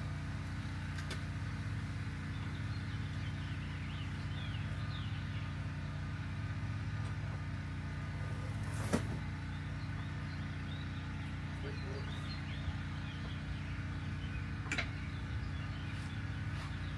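A steady low machine hum throughout, broken by two sharp clicks, the louder about nine seconds in and a lighter one near fifteen seconds.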